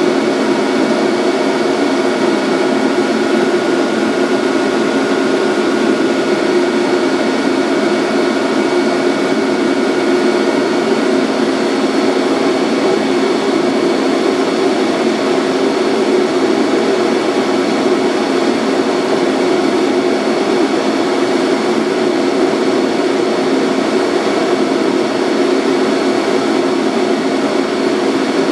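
Steady hum and fan noise from a Centram low-floor tram's onboard equipment, heard from the driver's cab, with a few faint steady whining tones over it; nothing changes or stands out.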